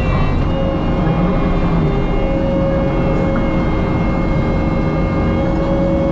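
Kubota skid loader's diesel engine running steadily under work, with a steady hydraulic whine over the low engine rumble.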